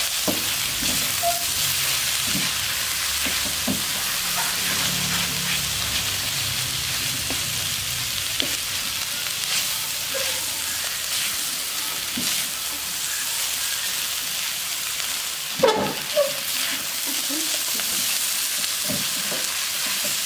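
Stir-fry of long beans, egg and noodles sizzling steadily in a wok, with a spatula scraping and turning the food against the pan. One louder clack about three-quarters of the way through.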